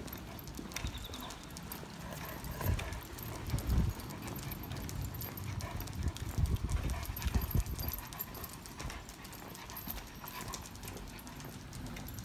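Footsteps of two Great Pyrenees and a person walking on brick paving, the dogs' claws clicking on the bricks in an uneven patter, with some dull low thumps.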